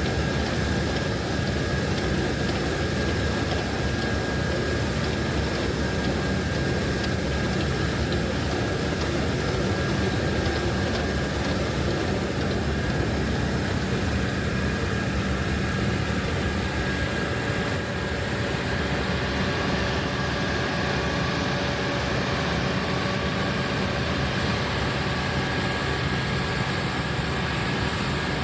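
Heavy farm machinery's diesel engine running steadily under load, with a thin steady high whine over the low engine hum.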